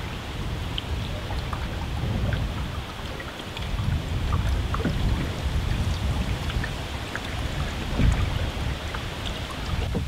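Wind buffeting the camera microphone in gusts, a deep rumble that swells and fades, with scattered small ticks and splashes of water from the canoe on the river.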